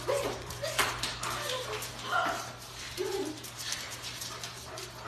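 Alaskan Malamute whining in several short calls that rise and fall in pitch.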